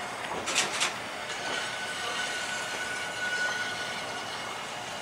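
TTC T-1 subway train running over the tracks: three quick clacks about half a second in, then a thin, steady high squeal for about three seconds over the train's steady rumble.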